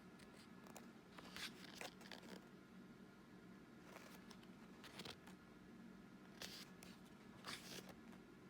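Pages of a book being turned by hand: several soft, faint paper swishes a second or so apart, over a low steady hum.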